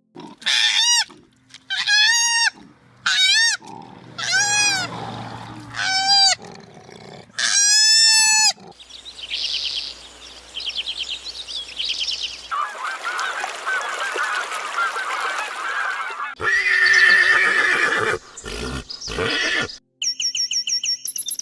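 A run of animal calls from more than one kind of animal: first about six separate rising-and-falling calls, then a fast high trill, then a dense chorus of overlapping calls.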